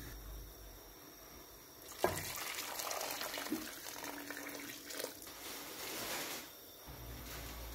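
A litre of water poured into a hot pan of fried chicken and peas, splashing steadily. It starts with a sharp knock about two seconds in and stops shortly before the end.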